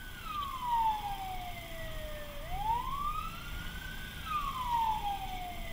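Fire truck's siren wailing, gliding slowly up and down in a cycle of about four seconds, heard from inside the cab over a low engine and road rumble.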